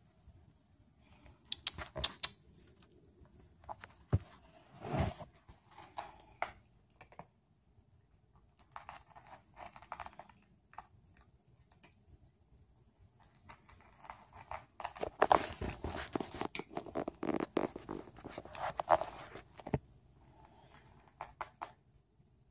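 Rustling and crackling of a blanket and clothing with scattered sharp clicks, in irregular bursts, as small kittens wriggle and claw in a lap. The densest stretch comes about two-thirds of the way through.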